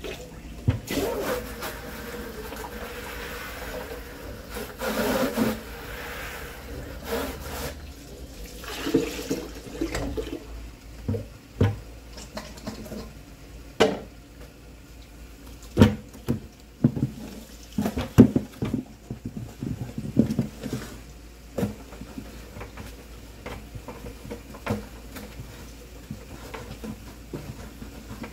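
Water running and sloshing in a plastic 5-gallon bucket as it is rinsed out at a kitchen sink, with repeated knocks and thuds of the bucket against the sink.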